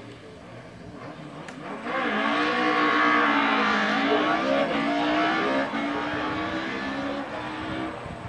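Hill-climb race car engine revving hard as the car climbs the course, its note rising and falling. It swells in about two seconds in and slowly fades toward the end.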